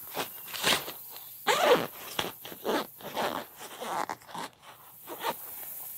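Zipper on a pop-up shelter's round fabric carry bag being pulled closed in a run of short pulls, the loudest about a second and a half in.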